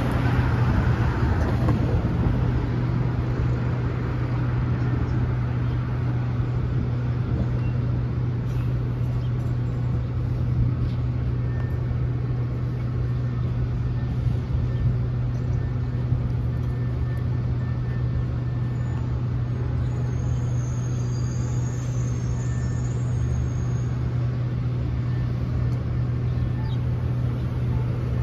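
Street traffic at a city intersection: cars passing over a steady low hum, a little louder in the first couple of seconds. A faint high squeal comes in about twenty seconds in.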